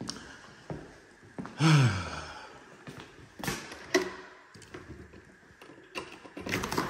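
A glass patio door being opened: a few clicks and knocks from its handle and latch. A person's short falling sigh about two seconds in.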